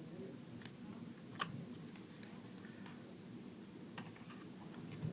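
A few short, sharp clicks and light handling noise as laptop memory modules are released from their clips and taken out of a MacBook Pro, the loudest click about a second and a half in.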